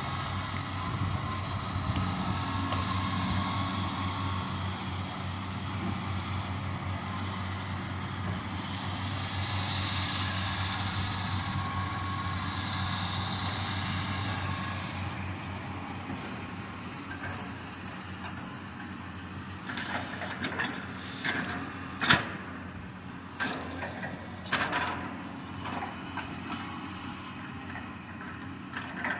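Diesel engine of a Cat knuckleboom log loader running steadily. In the last third come several sharp knocks and clanks as the loader's boom and grapple work.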